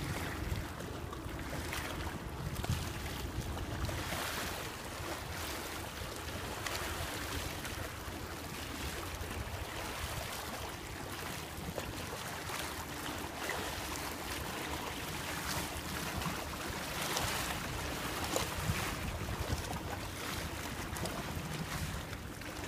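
Small sea waves lapping and washing against boulders at the water's edge, swelling every few seconds, with wind buffeting the microphone.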